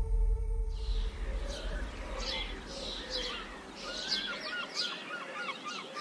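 Birdsong: several small birds chirping with quick, falling notes, starting under a second in, over a faint held background note.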